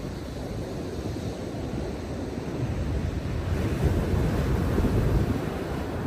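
Rough ocean surf breaking and washing on the shore in stormy seas. It swells louder a little past halfway and eases near the end.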